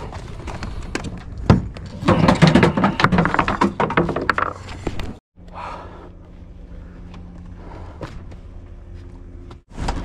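Clattering knocks and scraping as furniture is handled and loaded, with many sharp impacts; about halfway the sound cuts off suddenly and gives way to a quieter, steady low hum.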